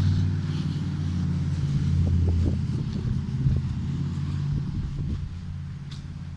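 Trane air conditioner unit running with a steady low hum, getting gradually quieter over the last couple of seconds.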